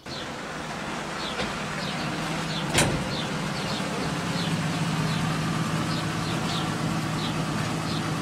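Vintage Pontiac sedan engine running steadily at idle, with one sharp knock about three seconds in.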